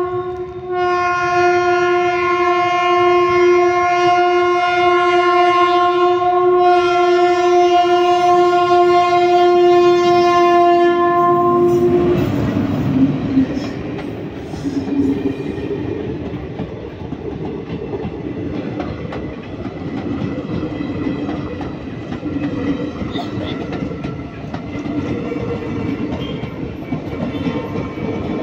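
Passenger train's horn sounding one long steady blast for about twelve seconds. Then the rumble and wheel clatter of passenger coaches rolling slowly past.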